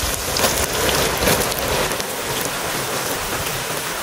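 Corn tortilla strips deep-frying in hot oil in a clay cazuela, sizzling steadily with dense crackling.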